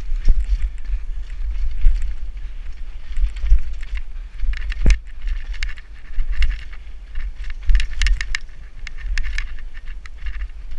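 Downhill mountain bike running fast over a rough forest dirt trail: heavy wind buffeting on the helmet-camera microphone, under a steady irregular rattle and clatter of the bike over roots and ruts. A sharp knock about five seconds in.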